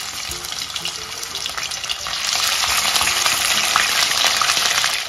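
Raw chicken pieces sizzling in hot oil in a karahi as they are laid in one by one; the sizzle grows louder about two seconds in.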